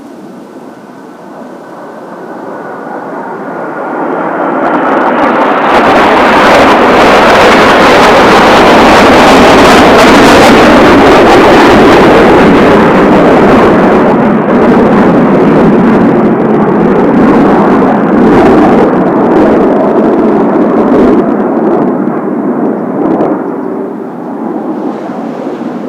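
Formation of Kawasaki T-4 jet trainers passing overhead: the turbofan whine and roar swell over about six seconds to a loud peak, then slowly fade with a crackling, uneven rumble.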